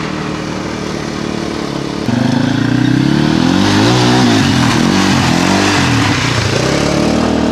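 Quad bike (ATV) engines running. The note is steady at first, then about two seconds in it turns louder and revs up and down repeatedly as the quads are ridden over a muddy dirt track.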